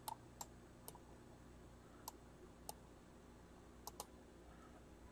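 Near silence broken by a handful of faint, irregular clicks, a couple of them in quick pairs, made while the webcam's focus is being adjusted.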